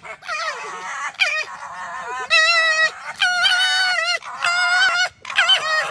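An animal calling loudly over and over: about six drawn-out calls, each wavering in pitch, with short breaks between them.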